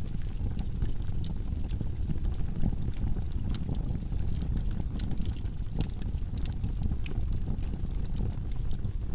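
Wood logs burning in a fireplace: a steady low rumble of flame with frequent sharp crackles and pops.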